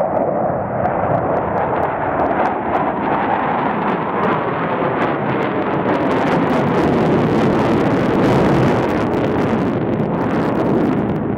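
Jet noise from four Boeing F/A-18 Hornets flying a low slow-speed loop with landing gear and tail hooks extended. It is a loud, steady rush that grows a crackle from about halfway through.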